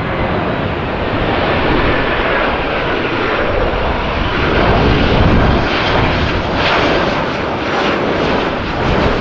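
Boeing 737-800 on final approach with landing gear down, its CFM56 turbofan engines giving a steady jet rumble and whine that gets louder as the airliner comes overhead.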